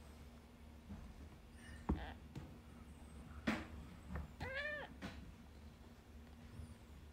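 Newborn two-day-old kittens mewing faintly a few times. The clearest cry comes about four and a half seconds in and rises and falls in pitch.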